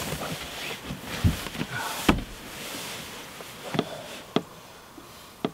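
A person climbing into a fabric hammock: rustling cloth with several knocks and thumps, the loudest two about one and two seconds in and a few sharper knocks near the end.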